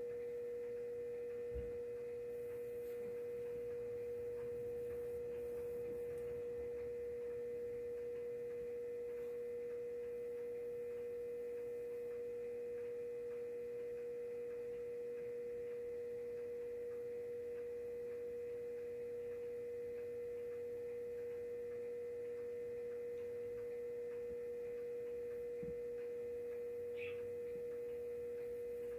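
A steady pure tone at one unchanging pitch, with a soft thump about a second and a half in.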